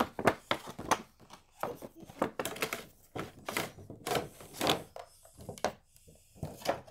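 Clear plastic blister packaging crinkling and crackling as it is pulled off a toy's plastic display case, in a string of irregular crackles and rustles.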